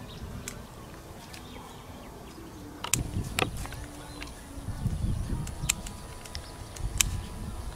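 Marigolds being picked by hand in a flower field. The first three seconds hold only faint outdoor background; then come a few scattered sharp snaps and rustling of the plants.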